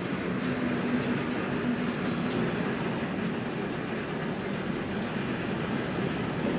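Freight train of tank wagons rolling slowly past, a steady rumble and hum from the wheels and cars, with a few brief high-pitched clicks.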